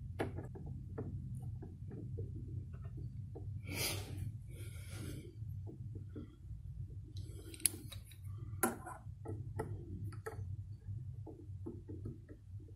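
Small clicks and taps of precision screwdrivers working the pivot-bearing screws in the metal bearing block of a Yamaha GT-750 tonearm, as the arm is centred and its slack taken up. Two sharper clicks come a little past the middle, over a low steady hum.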